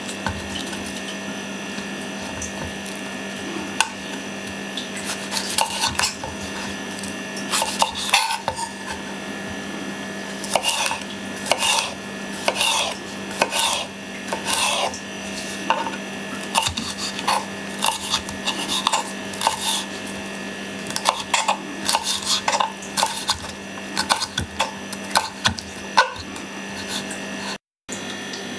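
Kitchen knife cutting a yellow bell pepper on a wooden cutting board: the blade trims the pith and slices the flesh into strips, with irregular taps and scrapes of the knife against the board.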